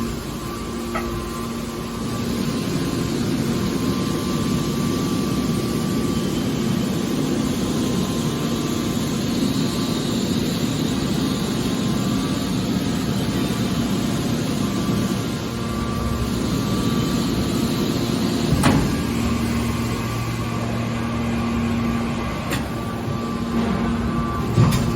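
Hydraulic scrap-metal baler running: a steady hum from its pump and motor, with two sharp metallic knocks late on.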